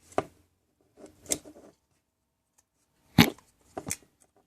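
Four sharp clicks and knocks of plastic parts being handled, the loudest about three seconds in, as a circuit board is worked off the mounting brackets of a cheap motion-sensor LED light's plastic housing.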